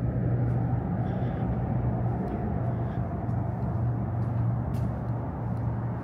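Steady low rumble with a constant low hum inside the tunnel, with a few faint clicks.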